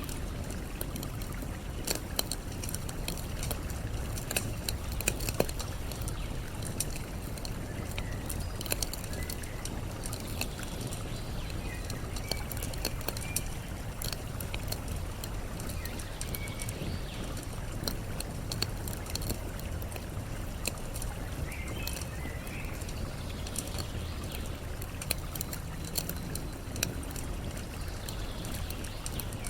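Campfire crackling with frequent sharp pops over a steady rush of flowing water, with faint bird chirps now and then.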